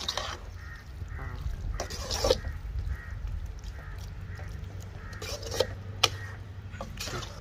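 Perforated metal ladle stirring thick bitter gourd curry in an aluminium kadai, with a few sharp clicks of the ladle knocking the pan, over a steady low hum. Faint honk-like animal calls are heard now and then.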